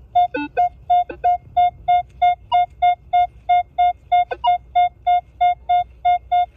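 Minelab Equinox 800 metal detector sounding a clean, repeating high beep, about three beeps a second at the same pitch, as the coil is swept back and forth over a buried target. It is a pure, consistent signal that the detectorist guesses is a silver dime.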